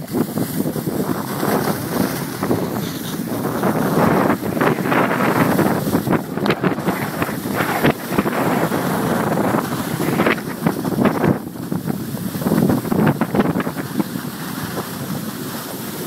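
Wind rushing and buffeting over the microphone of a camera carried down a ski slope, mixed with the hiss and scrape of skis on hard-packed snow, surging and easing unevenly.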